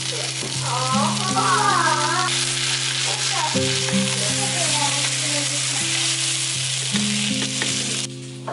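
Seafood green-onion pancake frying in oil in a pan, a steady sizzle while a wooden spatula presses it down and lifts its edge; the sizzle cuts off suddenly near the end.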